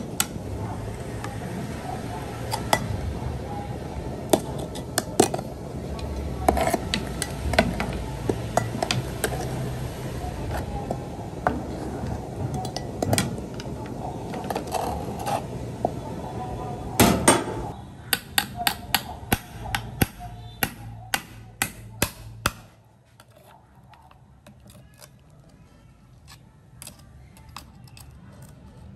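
Water boiling in a pan around a giant sea snail in its shell, with a metal ladle and hook knocking and clinking against the shell and the pan. About three-quarters through, the low rumble of the boil drops away and a run of sharp clicks remains.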